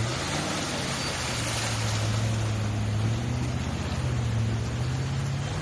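Off-road vehicle engine running at steady revs under load, its pitch stepping up near the end, over a loud hiss of churning muddy water.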